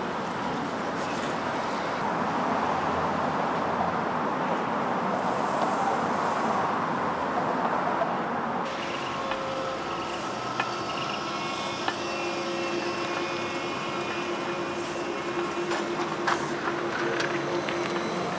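City street traffic, with a steady wash of tyre and engine noise from passing cars. About halfway through, a trolleybus close by takes over: its electric traction equipment hums with several steady tones over the traffic.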